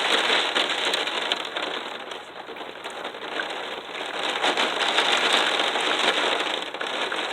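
Heavy rain beating hard against a window pane, a dense, even patter that eases slightly a couple of seconds in and then builds again.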